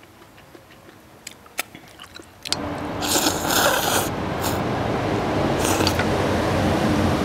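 A person slurping rice noodles: a few light clicks of chopsticks against a steel bowl, then a long loud slurp about three seconds in and a shorter one near six seconds. Under the slurps is a steady rumble that starts suddenly about two and a half seconds in.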